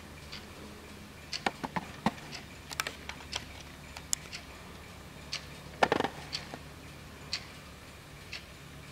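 Disney Donald Duck animated pendulum wall clock ticking about once a second. A scatter of sharper clicks comes between one and three and a half seconds in, and a louder clatter of knocks about six seconds in.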